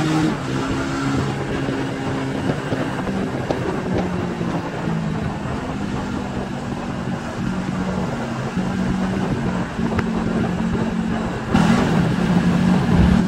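Motorcycle engine running at road speed under a steady rush of wind on the microphone. Near the end it gets louder and its pitch shifts.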